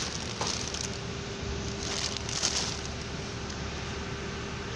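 Steady workshop background noise with a faint steady hum, and a few soft rustles of parts being handled, the loudest about two seconds in.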